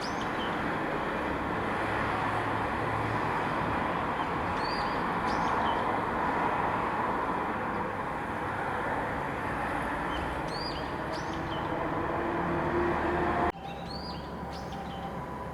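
Brown-eared bulbul calling from a wire: short high call phrases repeated about every five seconds, four times. Under them runs a louder steady rumbling noise that drops off abruptly about 13 seconds in, leaving a quieter hum.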